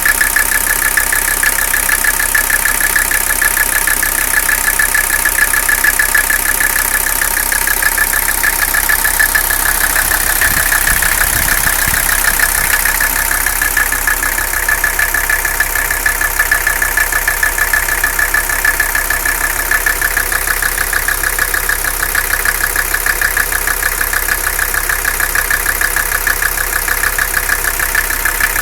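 Mercedes-Benz 300CD five-cylinder diesel engine idling rough, with a steady, rapidly pulsing noise over the idle. The owner wants a diagnosis of the noise and the rough idle.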